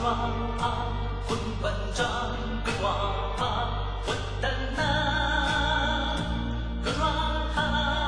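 Background music: a song with singing over sustained chords and a steady beat.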